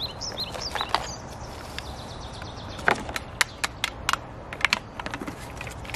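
Sharp clicks and knocks of metal from working at the lid of a gallon paint can, thickest in the second half. A few birds chirp in the first second.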